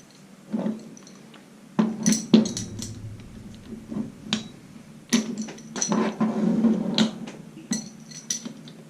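Irregular metal clinks and knocks of a 2-inch spanner on the power feed's lock nuts as they are broken loose.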